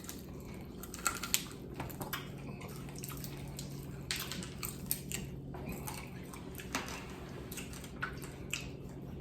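Eating sounds of fried chicken feet being chewed: scattered small clicks, smacks and crunches, over a faint steady low hum.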